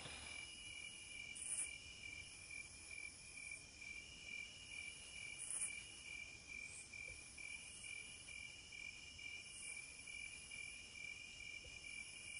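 Faint night insects: crickets chirping steadily in a continuous pulsing trill, with a higher-pitched insect call repeating about every two seconds.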